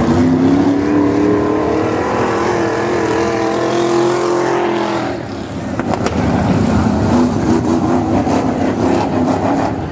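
305 winged sprint car engines running past at pace-lap speed while the field lines up for a restart. One car's note climbs slowly for about five seconds and drops away, then another comes by.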